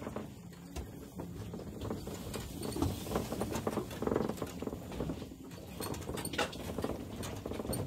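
Footsteps crunching on a stony dirt path, an uneven run of steps and rustles.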